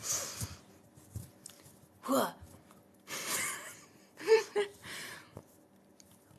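A person's breathy, non-word vocal sounds: several breaths and short voiced murmurs in a row, one falling in pitch.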